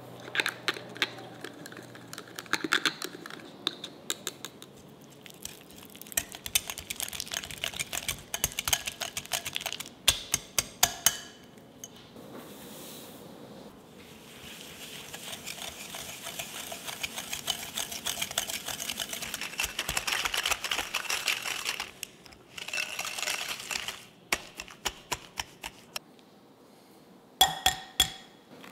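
Wire whisks clicking and scraping in rapid runs: first a small whisk stirring instant coffee into hot water in a small cup, then, after a short pause, a balloon whisk creaming soft butter with sugar in a glass bowl. A few sharp taps come near the end.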